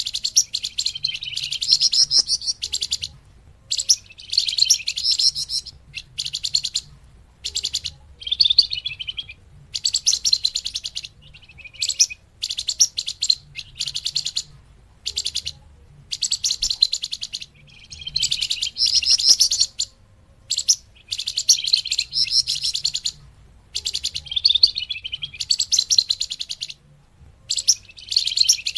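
Song of the bird known in Indonesia as the flamboyan, played as a lure call: repeated bursts of rapid, high chattering notes, each a second or two long, with short pauses between.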